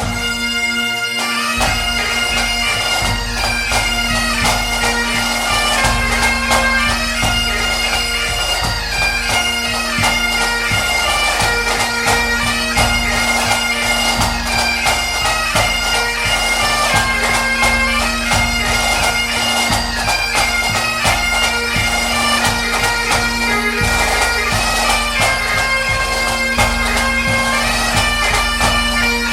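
Bagpipe music: a steady drone held under a moving melody.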